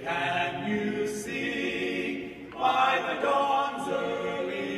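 Choir singing in held chords, with a new phrase starting about two and a half seconds in.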